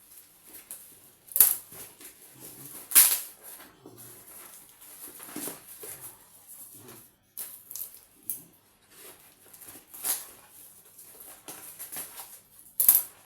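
Hot Wheels blister-card packaging being torn and pulled open by hand: a run of plastic and cardboard crinkling and rustling, with four sharp tearing cracks, about a second and a half in, at three seconds, at ten seconds and near the end.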